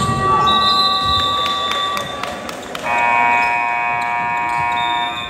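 Gym scoreboard buzzer sounding: one long steady blast, then a second, fuller blast about three seconds in that lasts over two seconds.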